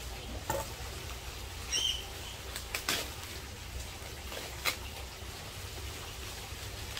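Bubble wrap rustling and crinkling as it is pulled off a cardboard box, with a few sharp crackles scattered through.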